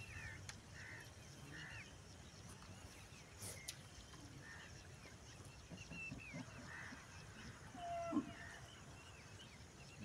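Faint animal calls, short falling notes repeating roughly once a second, over a low rumble of wind. A single click comes about three and a half seconds in, and a short louder sound about eight seconds in.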